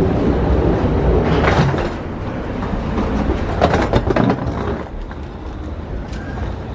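Steady low rumble of an airport jet bridge at the aircraft door, dropping about two seconds in as the walker passes into the terminal. A short cluster of clattering knocks follows a little later.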